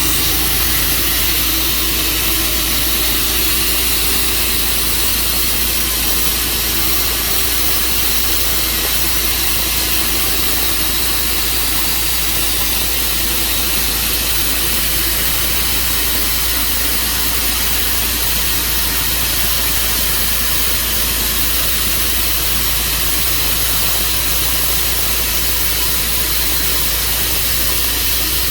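Portable sawmill's engine running steadily, with a constant high hiss over it.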